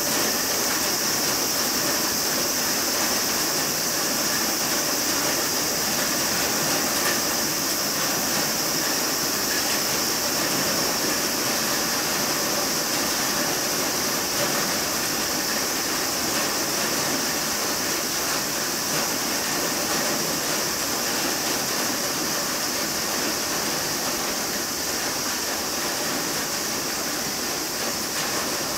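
Steady outdoor background noise: a continuous high-pitched hiss over a fainter rushing sound, unchanging throughout, with no distinct knocks or calls.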